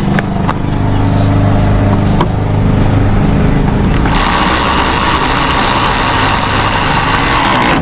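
A few sharp clicks of tool and hardware handling over a low steady drone. About four seconds in, a power drill/driver starts and runs steadily for several seconds, driving a screw.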